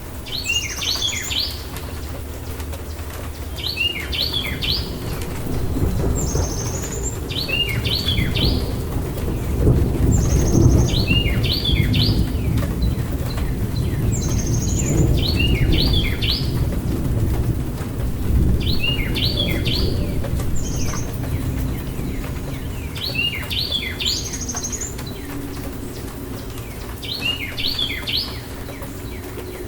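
Rainstorm ambience: steady rain with thunder rumbling, swelling in the middle and fading toward the end. Over it, a songbird repeats the same short chirping phrase about every three seconds.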